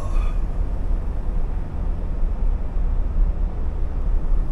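Scania R520 timber truck heard from inside the cab while driving at road speed: a steady low drone from its V8 diesel, mixed with tyre and road noise.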